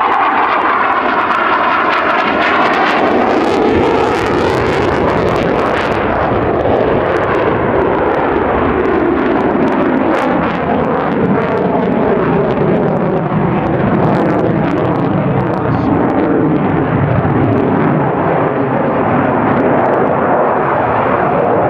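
F/A-18F Super Hornet jet engines roaring during a demonstration pass. The sound is loud and continuous throughout, and its pitch slides slowly downward as the jet moves past and away.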